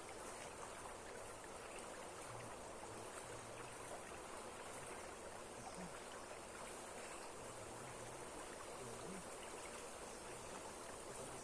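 Steady rush of a waterfall, water falling hard and running without a break.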